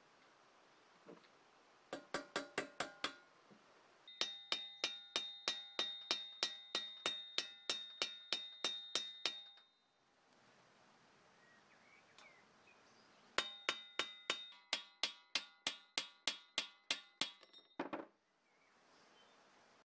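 Hammer peening a rivet through a shovel's steel socket laid on an anvil: three runs of quick light blows, about four a second, each blow ringing with clear metallic tones. A single duller knock comes near the end.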